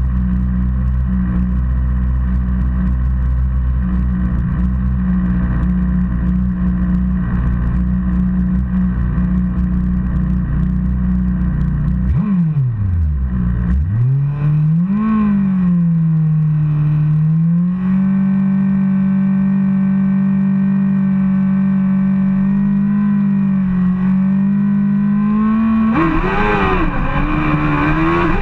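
Drag-racing sport bike engine running steadily at a fast idle, its pitch dipping sharply and swinging back up about halfway through, then holding steady again. Near the end the revs rise as the bike pulls away.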